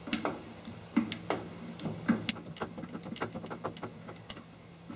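Irregular metallic clicks and light knocks, several a second, as the hand wheel and lead screw of a G0704 milling machine are cranked by hand to run the saddle back, over a low steady hum.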